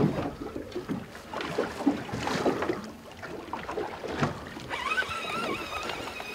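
Water slapping against a small fishing boat's hull, with knocks from rod and reel handling as an angler fights a fish. From about five seconds in there is a faint wavering high whine.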